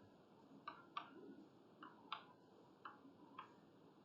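Faint, irregular clicks, about six in four seconds, over near silence.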